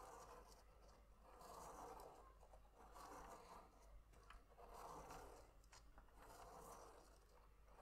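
Fineliner pen tip scratching lightly on paper as a clear plastic spirograph wheel is rolled around inside its toothed ring. The sound is faint and swells and fades with each sweep, every second or two, with a few light clicks.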